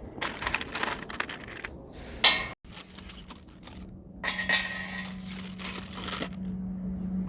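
Metal parts clinking and knocking as they are handled, with a sharp clank about two seconds in. A steady low hum comes in during the second half.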